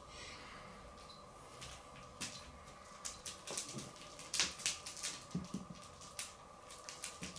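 Faint, irregular clicks and rustles of a cat wand toy being flicked and dragged over carpet, over a faint steady hum.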